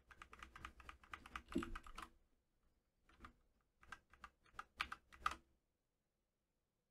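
Faint clicking of computer keyboard keys: a quick run of key presses for about two seconds, then a few short clusters of clicks between about three and five seconds in.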